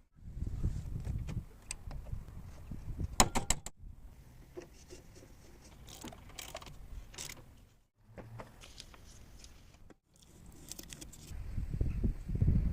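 Metal parts and hand tools clinking, tapping and being handled in workshop work, cut into several short clips with sudden silences between them.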